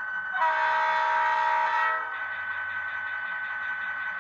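Sound-equipped HO-scale SD40-2 model diesel locomotive blowing its horn once, a chord-like blast of about a second and a half, through its small onboard speaker. The steady hum of the simulated idling diesel engine runs underneath.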